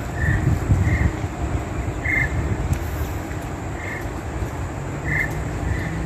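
Starlings calling from a tree: short single notes repeated about six times at irregular intervals, over a steady low rumble.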